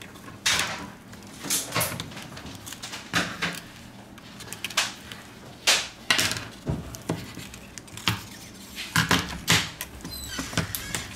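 Plastic opening card scraping and prying between a Huawei P20 Lite's broken screen and its frame, with irregular clicks and crackles as the glued screen is worked loose.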